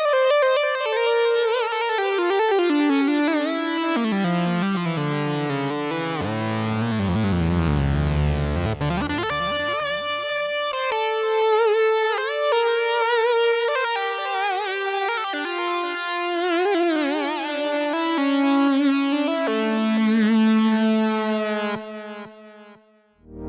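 Sequential OB-6 analog polyphonic synthesizer playing a custom patch: sustained notes and chords whose line sinks into low bass notes about five to ten seconds in, then climbs back with wavering pitches. The sound dies away near the end, and a new patch starts just as it closes.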